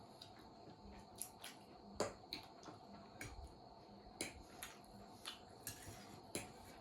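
Close-up eating sounds: wet mouth clicks and smacks of chewing, about a dozen at irregular intervals, the loudest about two seconds in.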